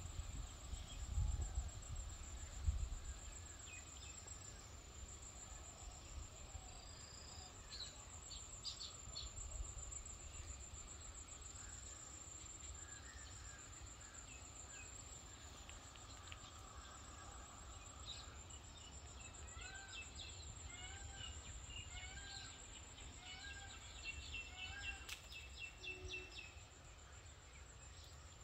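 Faint rural garden ambience: an insect drone at a steady high pitch runs throughout, and in the second half a bird gives a run of short repeated chirps. A few low rumbles sound in the first few seconds.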